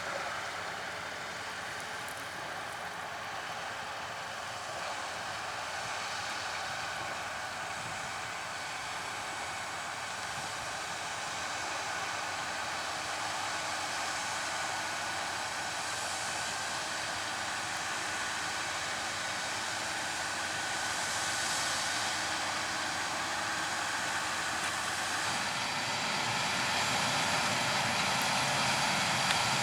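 Harvest machinery running steadily, a combine harvester or tractor at work, growing gradually louder toward the end.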